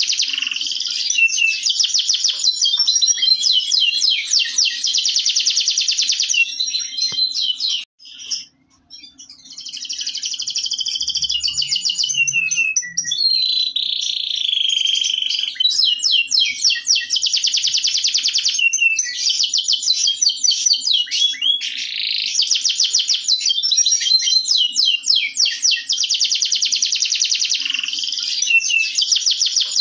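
Domestic canary of the Indonesian local type (kenari lokal) singing a long song of fast, high trills. The song breaks off briefly about eight seconds in, then resumes, with a held whistled note in the middle.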